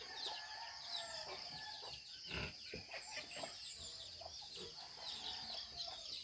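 Backyard chickens clucking, with many high, short peeps from chicks repeating throughout.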